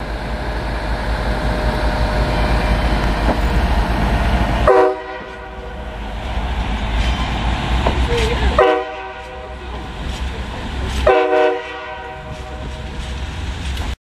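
VIA Rail Dayliner (Budd rail diesel car) sounding its air horn: three short blasts, each a chord of several tones, about 4 s and then 2.5 s apart. A steady low rumble fills the first few seconds before the first blast.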